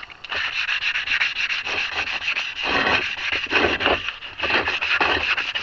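Brake rotor surface being scuffed by hand with an abrasive in rapid back-and-forth strokes, to take the glaze off the braking surface.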